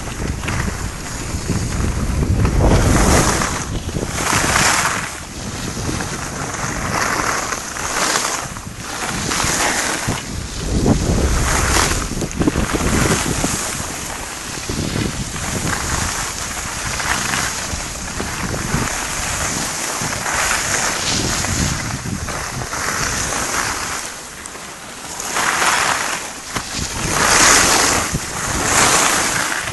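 Wind buffeting the microphone of a skier on the move, with skis hissing and scraping over hard-packed groomed snow. The noise swells and fades every second or two with the turns.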